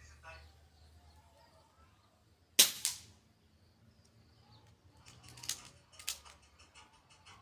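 A single shot from an Artemis CP2 (Diana Chaser) CO2 air rifle: one sharp crack with a short tail. A few seconds later come two lighter clicks about half a second apart.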